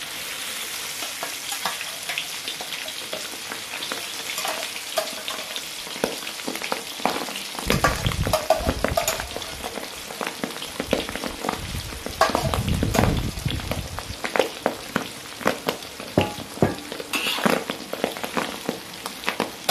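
Pieces of beef lung coated in turmeric and rice flour deep-frying in hot oil in an aluminium wok: a steady sizzle full of crackling pops. A spatula stirs through the pieces at times.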